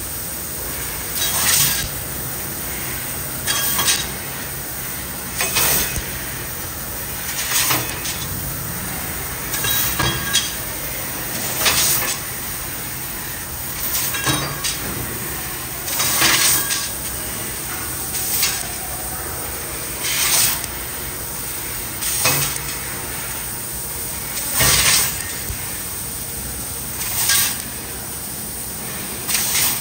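CNC laser cutter cutting a pattern in sheet steel: a steady hiss with a louder burst of hissing about every two seconds, some fourteen in all.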